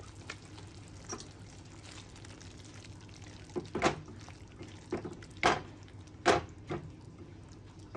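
A silicone spatula stirs fresh cream into a thick chicken curry in a metal kadai, making about half a dozen short stirring strokes and scrapes against the pan. The strokes start about three and a half seconds in, over a faint steady background.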